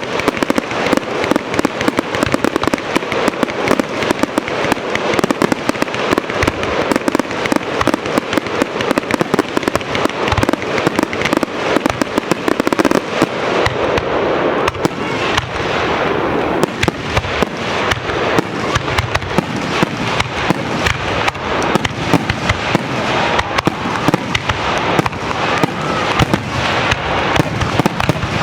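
Aerial fireworks shells bursting in a dense, unbroken barrage, the bangs and crackles coming too quickly to count and overlapping one another.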